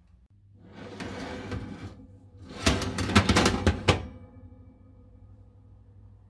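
A metal baking tray being slid into an oven on its rails: a scrape lasting about a second, then a louder run of metal clatters and knocks. After that, a faint steady hum from the running fan oven.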